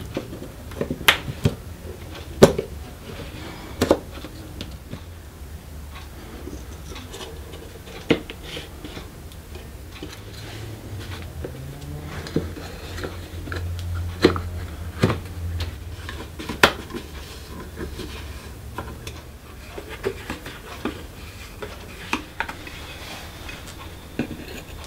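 Small hard parts being handled and fitted together by hand: irregular sharp clicks and knocks of carbon-fibre plates, a battery pack and a gimbal motor being set in place, over a low steady hum.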